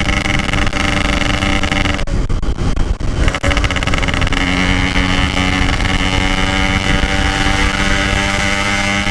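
Yamaha RX-King's 135 cc single-cylinder two-stroke engine running under way through a Packing Power stock-style exhaust. Its note eases off briefly about two seconds in, then picks up again and holds steady.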